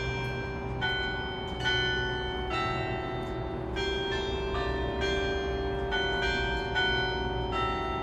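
Church bells ringing: a new stroke at a different pitch about every 0.8 s, each tone ringing on under the next, over a steady low rumble.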